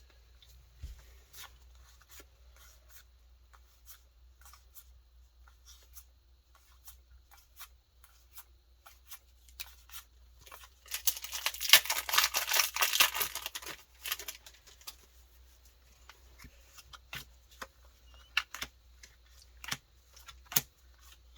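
Light clicks and rustles of trading cards being handled, then about three seconds of loud crinkling and tearing of a foil Pokémon booster pack wrapper about eleven seconds in.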